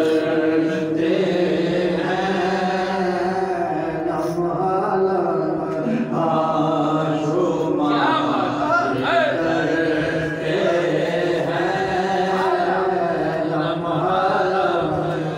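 A man singing a naat, devotional Islamic poetry, solo and unaccompanied into a handheld microphone, in long held notes with ornamented turns in the melody.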